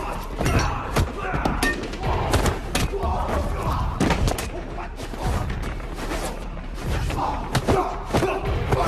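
Film fight sound effects: a rapid, irregular run of sharp hits, punches and body impacts, over a music score.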